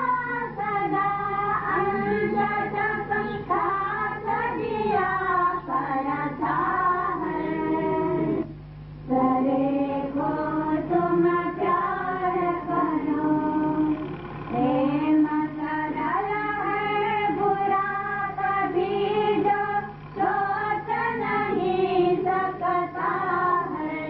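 A group of women singing together, with a brief pause about eight and a half seconds in. A steady low hum runs underneath.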